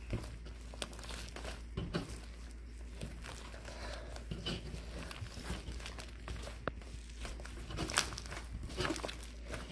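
Irregular crinkling and small crackles of something being handled by hand, with a sharper click about eight seconds in.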